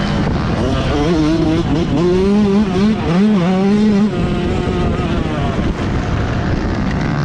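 Motocross bike's engine running hard under the rider, its pitch climbing and falling with the throttle and dropping sharply about four seconds in, over a steady rush of noise.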